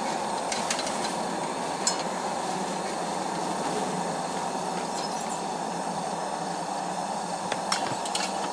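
Steady hiss of lit Coleman pressure lanterns burning, with a few light metal clinks as the lanterns are hung on a lantern stand.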